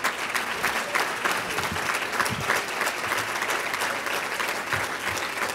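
Audience applauding: many hands clapping steadily, thick and even throughout.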